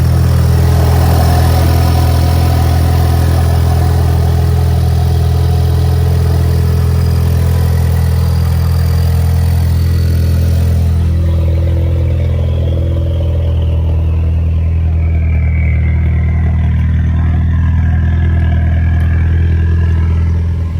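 Ford Mustang EcoBoost's turbocharged four-cylinder idling steadily with a deep, rumbly exhaust note from a leak at the turbo-to-downpipe flange, where the gasket is thought to be loose or misaligned. A high hiss fades out about halfway through.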